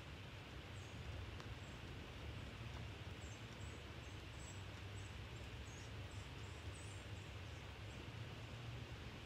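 Quiet outdoor ambience: faint, short, high-pitched bird chirps scattered throughout, over a steady low hum.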